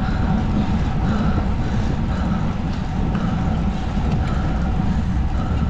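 Steady low rumble of wind and road noise on the microphone of a camera riding along on a road bike.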